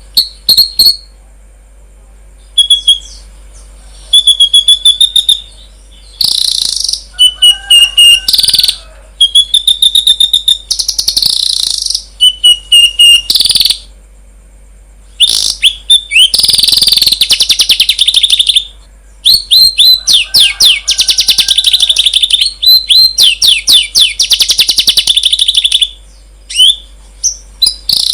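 Songbird song: loud phrases of quick, high chirps and fast trills, each lasting a second or so, separated by short pauses.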